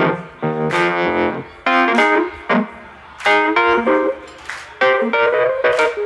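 Live band playing an instrumental passage: guitar chords in short stabs over drums, without vocals.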